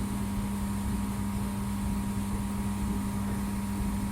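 Laser welding machine running with a steady electrical hum over a low rumble; nothing starts or stops.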